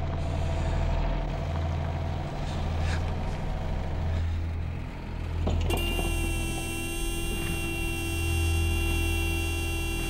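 A Volkswagen Squareback station wagon's engine rumbles steadily as the car rolls across a field. A little over halfway through, its horn starts to blare and then holds one unbroken, steady note, as if held down.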